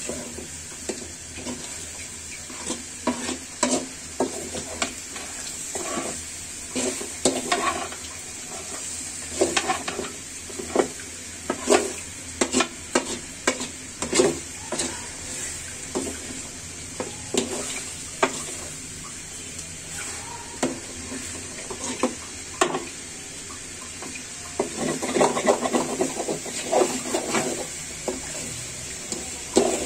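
A metal spatula scrapes and clatters against a metal pan as chicken curry is stirred and fried in its spice paste, with a steady sizzle underneath. The strokes come irregularly, a few each second.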